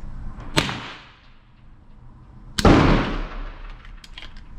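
Two gunshots about two seconds apart. The second is much louder, with a long echoing tail.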